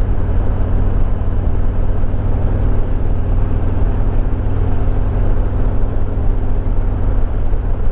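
Harley-Davidson Road Glide Limited's Milwaukee-Eight V-twin running steadily under way, a constant low engine note with a rushing noise over it and no change in pitch.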